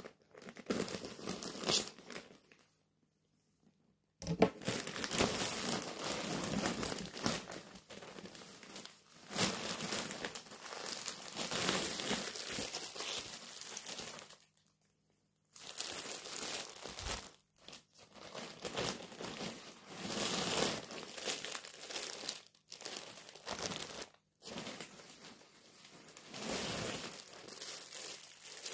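Plastic packaging crinkling as a black plastic mailer bag and clear polybags of clothing are handled and opened up close, with two short breaks into silence, about three seconds in and about fifteen seconds in.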